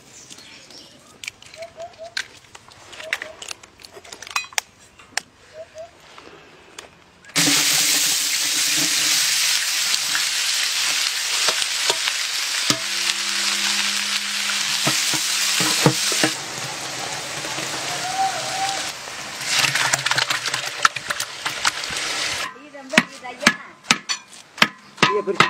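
Sliced onions frying in hot oil in a large metal cooking pot: a loud, steady sizzle that starts suddenly about seven seconds in and stops suddenly a few seconds before the end. Before it, scattered light clicks and knocks; after it, a metal ladle clinking and scraping against the pot as the egg mixture is stirred.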